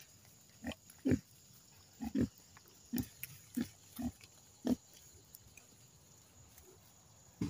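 Young pigs grunting: about eight short, separate grunts over the first five seconds, then they stop.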